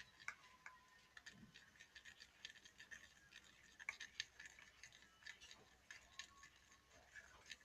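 Faint, irregular small clicks and scrapes of homemade slime being mixed and worked, close to near silence.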